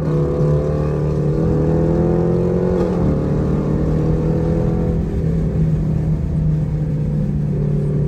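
Car engine heard from inside the cabin while driving, pulling under acceleration. Its pitch climbs slowly and drops sharply about three seconds in, as at an upshift, then settles again around five seconds.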